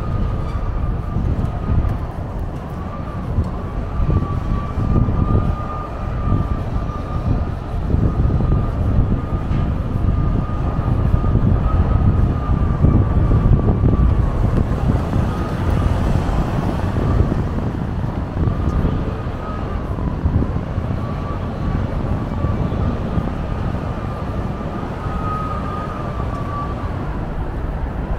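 Street traffic on a busy city street: a steady rumble of vehicles, with a thin high whine that wavers slightly, drops out for a few seconds midway and then returns.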